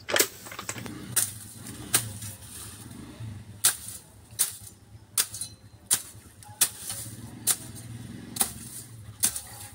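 A machete chopping through tall grass and weeds: about a dozen sharp cutting strokes, roughly one a second.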